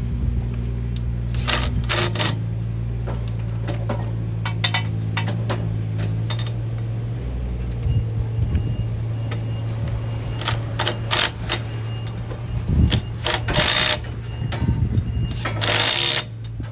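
Cordless impact driver tightening nuts on a steel boom gate bracket in several short hammering bursts, with a steady low hum underneath.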